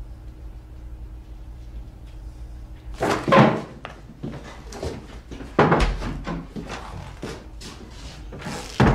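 A low steady hum, then about three seconds in a man rises abruptly from a desk: a loud scrape and rustle, followed by hurried footsteps and door sounds, with sharp clunks near the middle and near the end.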